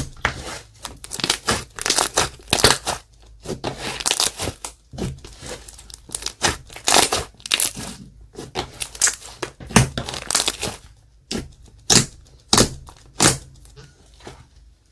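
Clear slime being kneaded and mixed by hand, giving an uneven run of crackling, popping squishes, with a few sharper single pops spaced out near the end.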